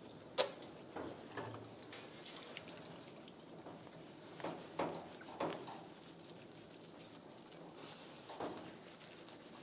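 Faint, scattered drips and small knocks of water around a wet dog being bathed in a grooming tub.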